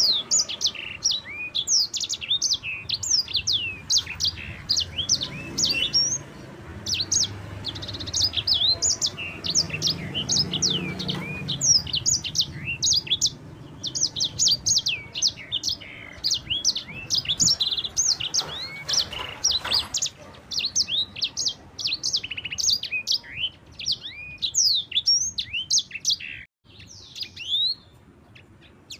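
A sanger songbird singing a long, fast, unbroken run of short, high chirping notes, each note sweeping downward, which keepers call rolling song. The run breaks off briefly near the end.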